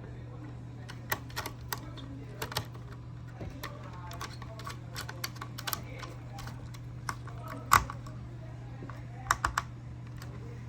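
Irregular light clicks and taps from handling wires and terminal parts during relay wiring, over a steady low hum. The loudest click comes a little past the middle, with a quick pair of clicks soon after.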